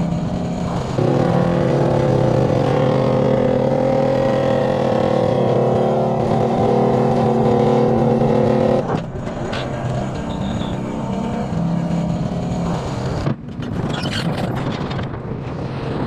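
Excavator-mounted hydraulic vibratory pile hammer and the excavator's diesel engine running together, a loud steady drone with several pitched tones, as a steel sheet pile is vibrated into the ground. The sound drops and shifts abruptly about nine and again about thirteen seconds in.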